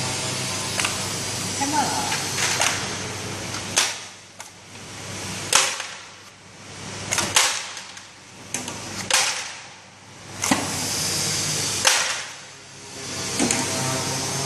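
Automatic flat-surface labeling machine running: a steady motor hum from the conveyor, then from about four seconds in a sharp snap every one and a half to two seconds as round plastic lids pass under the labeling head.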